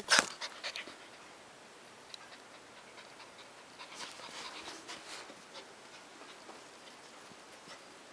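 Border collie puppy tugging on a leash, with a couple of loud, sharp sounds right at the start, then soft panting and scattered light scuffs and clicks.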